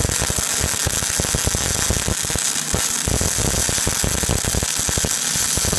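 MAG welding arc burning steadily on a carbon steel butt weld, throwing spatter: a continuous, dense crackle over a steady hiss.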